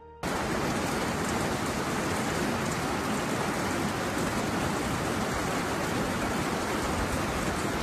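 Heavy rain pouring down: a dense, steady hiss of rain that cuts in abruptly just after the start.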